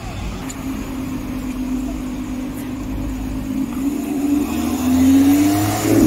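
Performance car engine running at a low steady note, then rising in pitch and getting louder around four to five seconds in as the car accelerates past.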